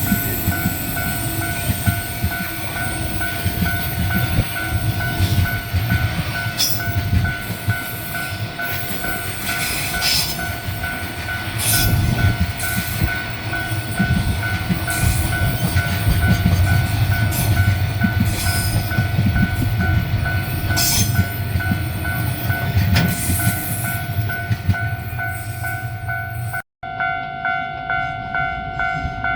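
Japanese level-crossing alarm bell ringing steadily while a JR Narita Line train passes over the crossing, its wheels rumbling and clicking over the rails. Near the end the train sound breaks off abruptly, leaving only the crossing bell ringing in an even beat of about two strokes a second.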